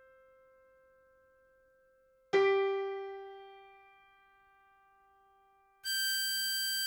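A single piano-like note struck about two seconds in, ringing and fading away over a couple of seconds. Near the end a held harmonica note starts and stays at a steady pitch and level.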